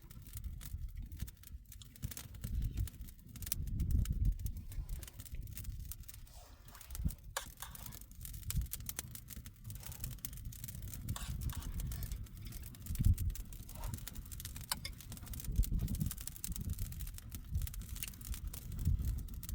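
Wind buffeting the microphone in gusts, with scattered sharp clicks and crackles throughout.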